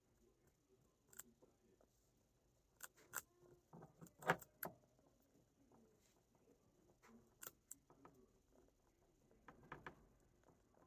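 Near silence in a guinea pig cage, with a few faint, scattered clicks and rustles. The sharpest click comes about four seconds in.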